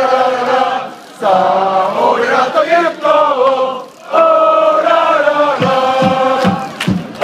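A large crowd of football supporters sings a player chant in unison, in phrases with short breaks between them. About two-thirds of the way through, sharp hits come in on the beat of the singing.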